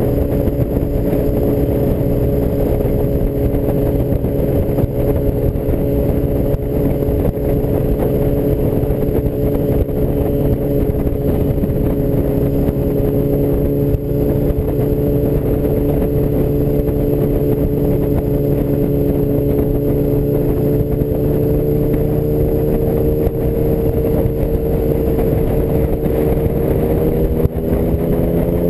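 1984 BMW R100RS's air-cooled flat-twin engine running steadily at highway cruising speed, with a steady rush of wind and road noise. Its pitch rises gently near the end as the bike speeds up.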